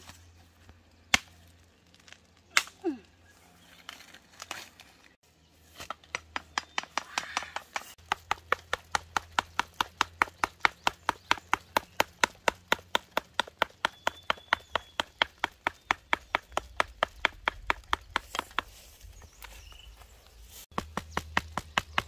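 Rapid, even chopping strokes, about three or four a second, starting about six seconds in after a few single knocks.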